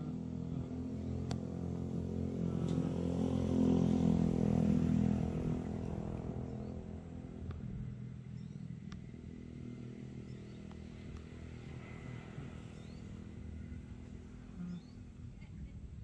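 Motorcycle engine running steadily, louder about four seconds in and then easing off to a lower, even level.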